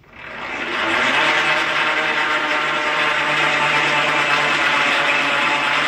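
Winch motor driving a motorised bead roller's rollers, switched on at the foot control. It spins up over about a second, then runs at a steady speed with an even electric hum and whine.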